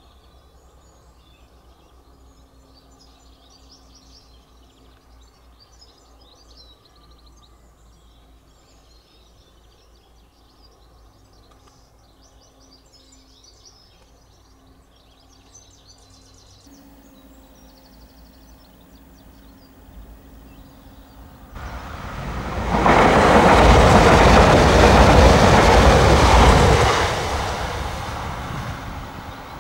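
Birds chirp over quiet outdoor background, then about twenty seconds in a passenger train approaches. It passes loudly over the level crossing for about five seconds, then fades away into the distance.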